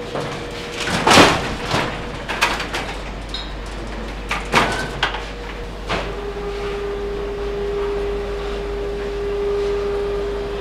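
Metal clanks and knocks as a wheeled rack of dough trays is pushed into a tall stainless-steel cabinet and its door handled; the loudest bang comes about a second in, with more clanks over the next few seconds. Under it runs a steady machine hum that drops to a lower pitch about six seconds in.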